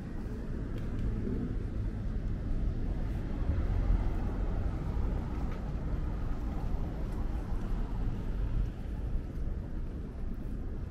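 Street ambience with a low traffic rumble that swells about four seconds in, then eases.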